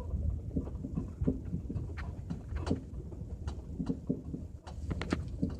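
L322 Range Rover driving, a steady low road rumble with irregular knocks and rattles from the suspension. The clunking is still present after the front lower control arm bushings were replaced, so its cause lies elsewhere in the suspension.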